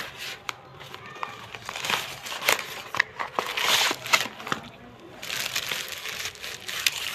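Plastic packaging crinkling and rustling in bursts as a selfie stick is unwrapped and handled, with a few small clicks and taps.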